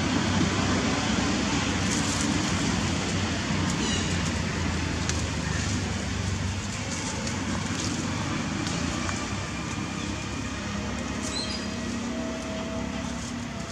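Steady outdoor background noise: a continuous low rumble under a broad hiss, easing slightly toward the end, with a few faint high chirps.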